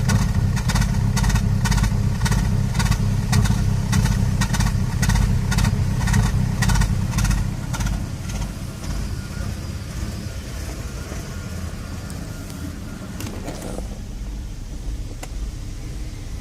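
2011 Toyota Prius's 1.8-litre four-cylinder petrol engine running roughly, with a rhythmic knock about two to three times a second over a deep rumble, the sign of a misfire. About halfway through the knocking fades and the engine runs quieter and smoother.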